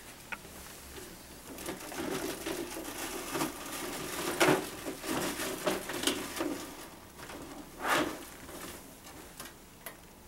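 Handling noises from spirometer parts and cables on an equipment cart: irregular rustling, small clicks and knocks, with two louder sharp knocks about halfway through and near the end.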